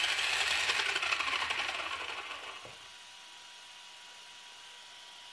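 Zombie 8E RC monster truck's electric motor and drivetrain spinning its wheels in the air under throttle, a steady whirring with a light rattle. It fades out as the wheels slow and stops about three seconds in.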